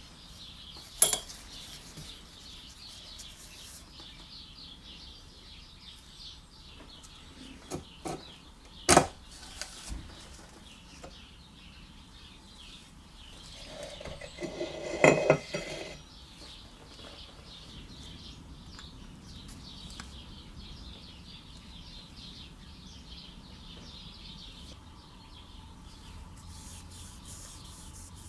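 Metal parts of a small Briggs & Stratton engine clinking and knocking as it is taken apart by hand: a sharp clink about a second in, more around eight to nine seconds, and a longer clatter around fifteen seconds.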